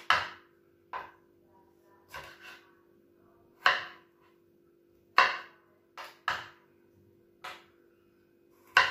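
Chef's knife slicing cherry tomatoes on a plastic cutting board: the blade knocks on the board about eight times at uneven intervals of roughly a second.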